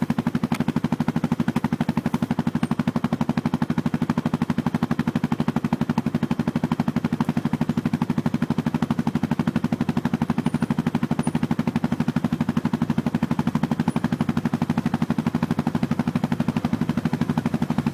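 Quad bike engine running steadily, with a rapid, even pulse that holds at the same loudness throughout.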